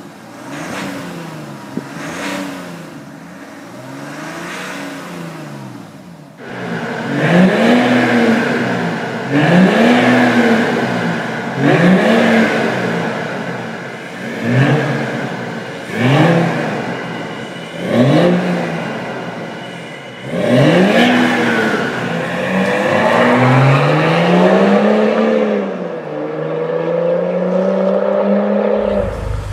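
Two BMW diesel engines with aftermarket exhausts being revved. First, a 335d's straight-six diesel with an AC Schnitzer exhaust swings up and down in short revs. About six seconds in comes a louder 525d with an M5-style exhaust, blipped sharply about every two seconds, with a longer rising rev held near the end.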